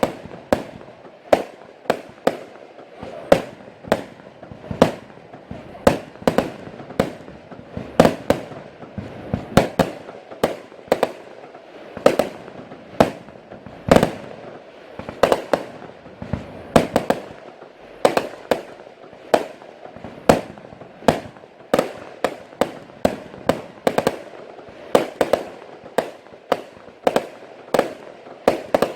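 Category F2 consumer fireworks going off: a rapid, uneven string of sharp bangs, about two or three a second, with a steady hiss between them.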